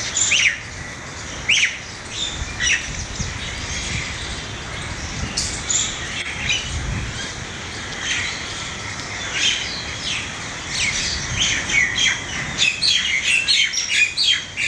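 Birds chirping and calling: many short, sharp, high-pitched calls, some sliding downward, coming thicker and faster near the end.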